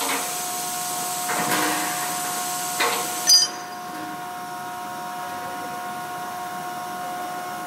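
A metal rod scraping and clicking against a brass compression fitting on a stainless-steel tank, with a scrape in the first two seconds and a sharp clack about three seconds in, over a steady machine hum.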